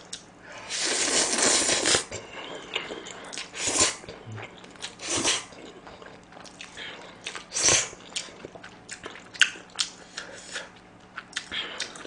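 A person slurping sauce-coated stir-fried instant noodles from chopsticks. One long slurp comes about a second in, then shorter slurps every couple of seconds, with chewing and wet mouth clicks between.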